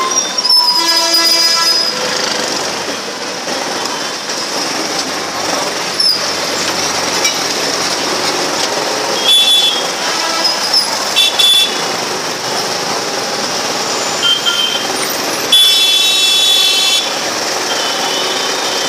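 Busy street traffic noise with vehicle horns honking several times: a honk about half a second in, a few short honks in the middle, and a longer honk near the end.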